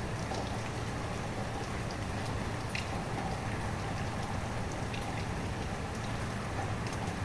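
Steady rain falling, with a few individual drops ticking out distinctly above the hiss.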